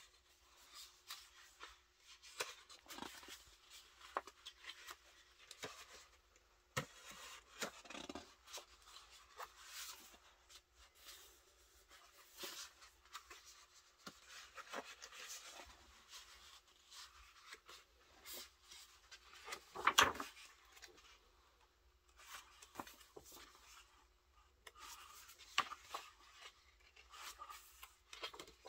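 Glossy pages of a large hardcover photobook being turned by hand, one after another: faint, intermittent paper rustles and soft swishes, with one louder rustle about two-thirds of the way through.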